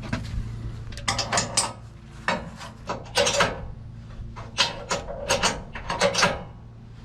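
Short rasping, scraping strokes of a metal tool working an adjuster foot on the sawmill rail to raise it. The strokes come in irregular clusters, about a dozen in all.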